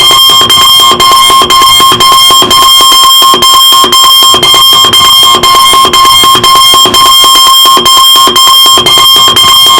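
Electronic alarm clock going off, very loud: a steady high-pitched electronic tone over a fast pulsing pattern, broken by short gaps about twice a second.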